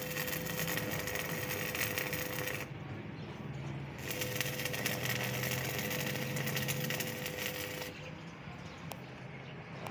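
Electric arc welding on steel: the arc crackles for about two and a half seconds, stops, then crackles again for about four seconds, with a steady hum under each weld.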